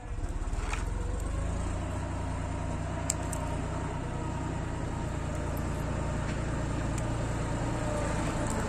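A steady low rumble, like a nearby engine running, with a few short sharp clicks from wire-stripping pliers working on a camera's red and black power wires.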